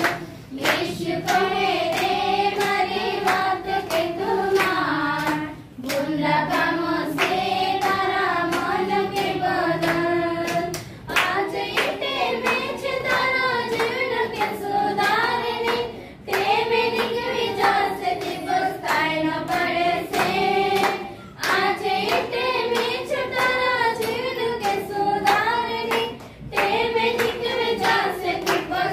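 A small group of women singing a song together in unison while clapping their hands on a steady beat; the phrases break briefly for breath about every five seconds.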